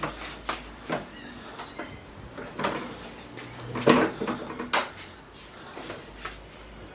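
A series of irregular knocks and clicks, some ringing briefly, with the strongest one about four seconds in.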